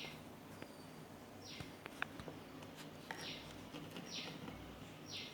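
A bird calling in the background: five short, high calls, each falling in pitch, spaced a second or so apart, with a few faint clicks between them.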